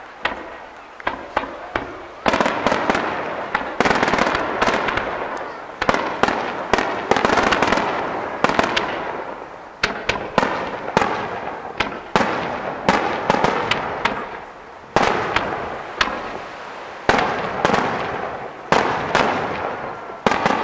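Fireworks display: sharp bangs of bursting shells about every two seconds, each followed by a dense crackling tail that fades before the next volley.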